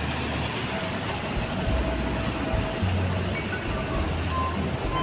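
Steady city street traffic noise with a low rumble, and thin high squealing tones, typical of vehicle brakes, over it.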